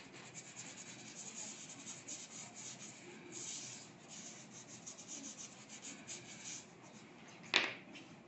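Gloved fingers rubbing and blending dry pastel on a sheet of paper: many quick, scratchy strokes. One short, louder sound comes near the end.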